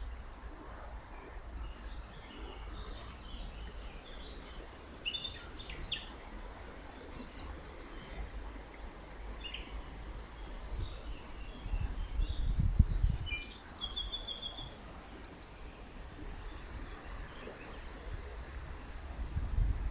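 Songbirds chirping and calling in short scattered notes, with a fast trill about fourteen seconds in, over a steady rushing of river water. A low rumble swells briefly around the twelve-second mark.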